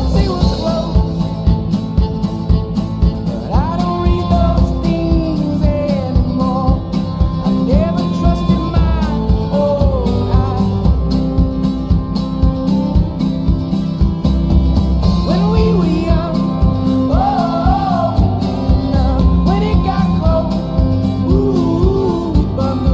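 Background music: a song with a steady beat and a gliding melody line over it.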